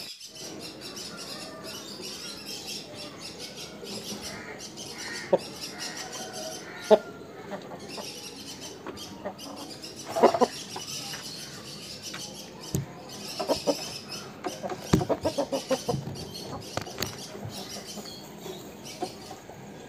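Aseel rooster giving scattered short clucks, with a quicker run of them about two-thirds of the way in.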